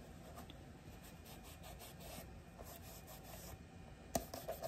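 Faint rubbing of a microfiber cloth over a leather knife sheath, wiping leather cleaner over it, with one sharp click about four seconds in.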